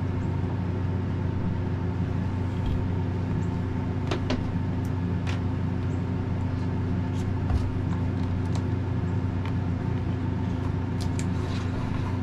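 Steady mechanical hum holding a few fixed low pitches, with scattered light clicks from wires being handled.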